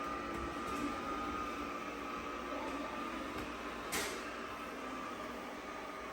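Bissell SpinWave robot vacuum and mop running, a steady motor hum with a thin constant whine. There is one sharp click about four seconds in.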